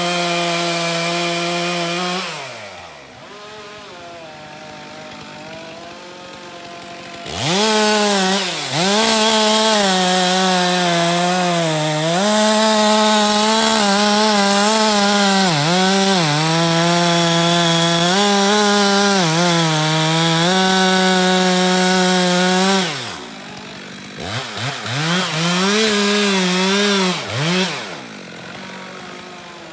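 Two-stroke chainsaw cutting into a beech trunk. It runs at full throttle briefly, drops back to idle for a few seconds, then holds full throttle for about fifteen seconds with the engine note dipping repeatedly as the chain bogs in the wood. It then falls back and is revved up and down several times near the end.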